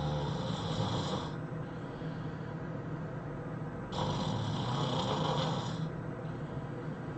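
A person snoring heavily in sleep: one snore dies away about a second in, and the next comes in about four seconds in and lasts about two seconds, with quieter breathing between.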